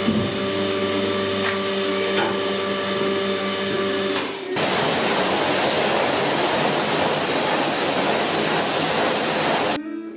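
Pressure washer in use on a silkscreen in a washout booth. A steady machine hum with a few fixed tones runs for about four and a half seconds, then the high-pressure water jet hisses loudly and evenly against the screen until it cuts off near the end.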